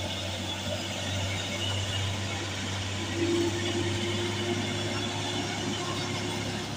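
Diesel engine of an orange Hino medium-duty truck pulling up a steep hill: a steady low drone, with a higher whine joining about three seconds in for a couple of seconds.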